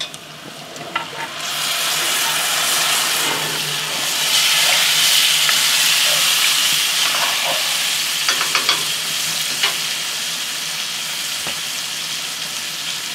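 Seared pork cubes scraped from a frying pan into a hot cast iron Dutch oven of onions, setting off a loud sizzle about a second and a half in. The sizzle slowly eases off while the meat is stirred with a wooden spoon, with a few short clicks and scrapes of the spoon against the pot.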